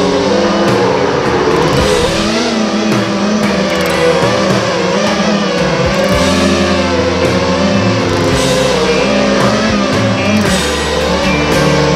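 Rock music with electric guitar, held bass notes and drums playing at a steady level.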